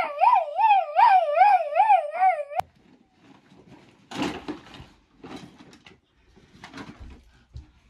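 A loud howl-like warble whose pitch swings up and down about two and a half times a second, cut off suddenly a little over two seconds in. After it come soft rustles and light knocks of someone moving about.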